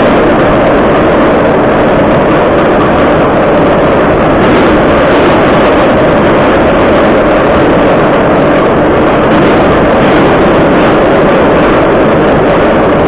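Moscow Metro 81-717.5 'Nomernoy' subway car running through a tunnel, heard from inside the car: loud, steady running noise of the wheels and running gear, unbroken throughout.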